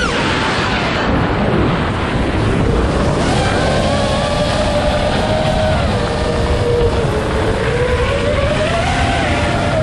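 Brushless motors and propellers of an iFlight Nazgul5 V2 five-inch FPV quadcopter whining, with a rushing noise underneath. The pitch drops sharply right at the start as the throttle is cut, then wavers up and down with the throttle.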